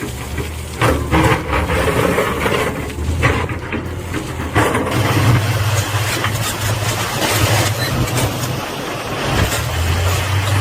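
Excavator's diesel engine running steadily, with a few short knocks and clanks from the machine working.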